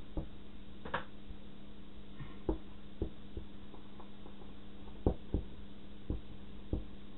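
Dry-erase marker writing on a small handheld whiteboard: scattered soft taps as the tip strikes and lifts from the board, over a steady low hum.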